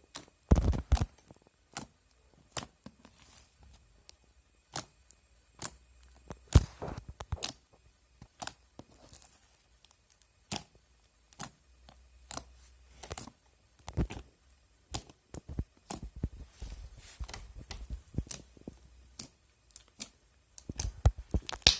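Thick fluffy slime being squeezed and pressed by hand, giving irregular sharp clicks and little pops, at times several close together.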